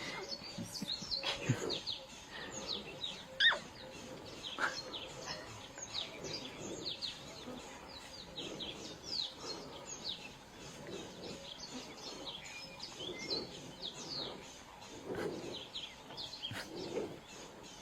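Small birds chirping continually: many short, quick, downward-sliding chirps overlapping, with a few louder calls in the first few seconds.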